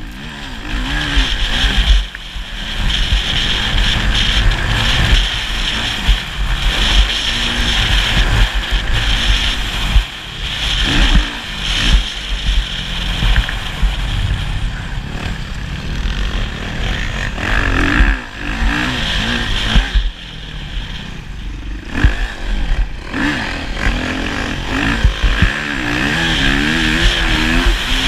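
Motocross bike engine revving up and down over and over, with short drops in between as the throttle is closed and opened again.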